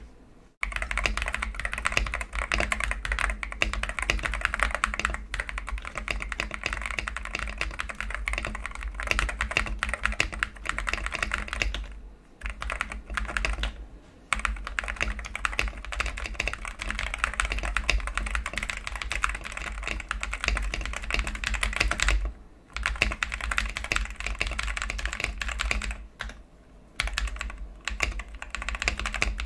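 Fast, continuous typing on an Akko 5075S mechanical keyboard with Akko Cream Yellow Pro linear switches, tape-modded and foam-dampened, pausing briefly a few times.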